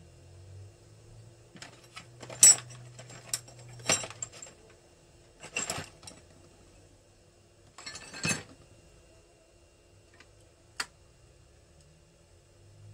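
Metal tools and engine parts clinking and clattering on a workbench in a handful of separate short bursts. The loudest is a sharp clink a couple of seconds in, with a last lone clink near the end. A faint steady hum runs underneath.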